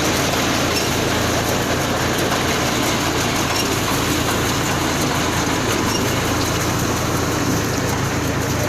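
Round straw baler running steadily, with an engine's even hum underneath and a dense mechanical rattle and rush over it.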